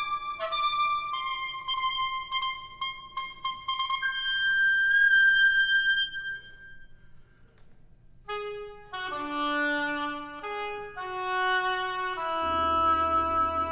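Oboe playing a run of short notes, then a long, loud high note that fades into a brief near-silence before the notes resume. Near the end a low, sustained tam-tam hum comes in beneath the oboe.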